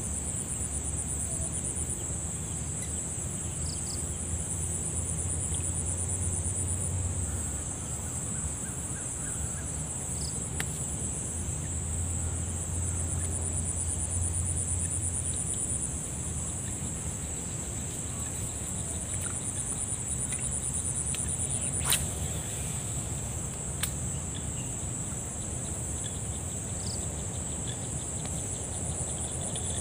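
Steady chorus of crickets or other insects, a continuous high shrill with a fine pulsing texture. A low rumble swells and fades twice in the first half, and a single sharp click stands out about 22 seconds in.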